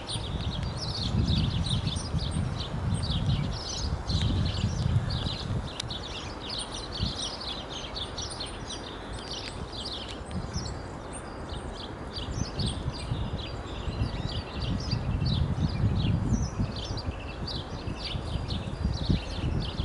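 Small songbirds chirping and twittering in many short, quick calls that never stop. A low rumble swells and fades twice underneath.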